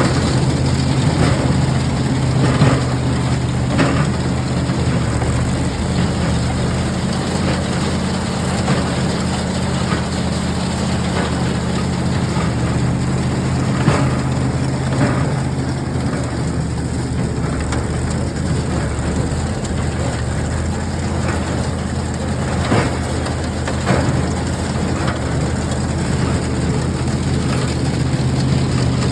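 New Holland Super 77 square baler working behind a running engine: a steady low engine hum with repeated sharp knocks from the baler's mechanism.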